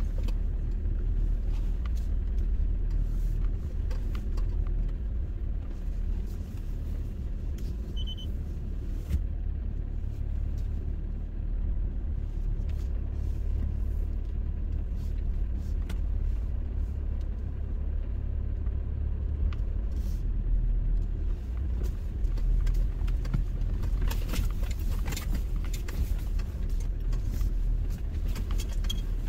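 Car rolling slowly along a dirt track, heard from inside the cabin: a steady low rumble of engine and tyres, with scattered crackles near the end.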